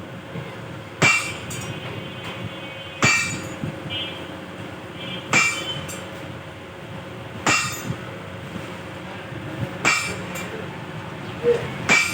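A hammer striking metal with six single ringing blows, about one every two seconds.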